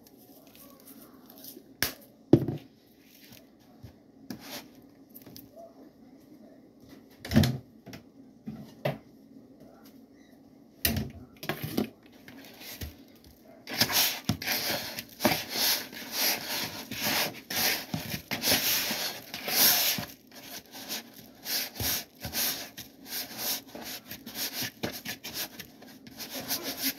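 Hands rubbing and tossing boneless pork ribs in brown sugar and dry rub inside a plastic mixing bowl. A few separate knocks come first, then from about halfway a dense, steady scraping and rustling of the coated meat against the bowl.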